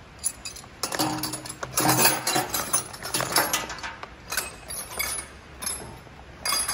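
Metal spanners and hex keys clinking and rattling against each other in a plastic zip-lock bag as they are handled and packed away. The clinks are irregular, with a louder clatter near the end.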